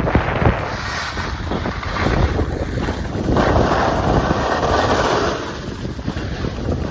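Wind buffeting the microphone as the camera skis downhill at speed, with the rushing hiss of skis sliding over packed snow that swells about halfway through.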